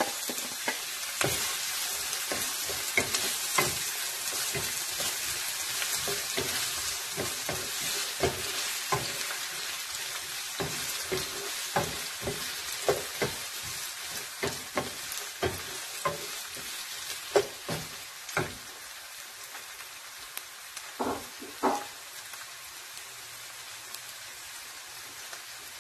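Diced onion sizzling in hot oil in a nonstick frying pan, with a wooden spoon stirring and knocking against the pan. The knocks come often at first, thin out after about 18 seconds to a couple near the end, and the steady sizzle carries on.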